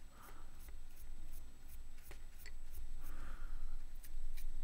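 Faint scratching of a small dry brush's bristles flicked back and forth over the raised edges of a miniature's sculpted cloak, in quick repeated strokes of dry brushing.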